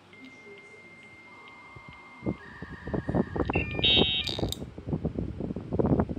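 Electronic beeps from a piezo buzzer: steady tones at a few fixed pitches with faint ticks, then a quick stepped run of higher beeps. From about two seconds in, a loud, irregular run of low pulsing hits, like drum-heavy music, starts and takes over.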